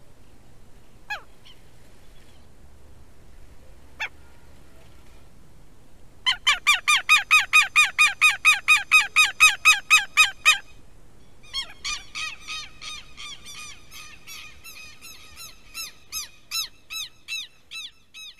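Southern lapwings calling: two single shrill calls, then a loud rapid run of repeated shrill notes, about four a second, lasting some four seconds. A second, fainter and more ragged run of the same notes follows.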